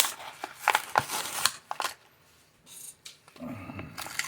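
Packaging being handled: a quick cluster of sharp crinkles and clicks in the first two seconds, then a duller, lower rustle near the end.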